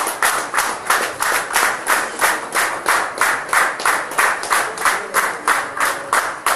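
Audience clapping together in a quick, steady rhythm, about three claps a second.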